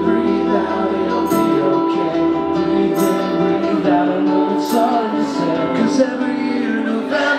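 Slow pop-punk song played live on a strummed acoustic guitar and a semi-hollow electric guitar, with a man singing.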